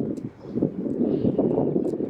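Wind buffeting the microphone in uneven gusts, with a few faint high chirps above it.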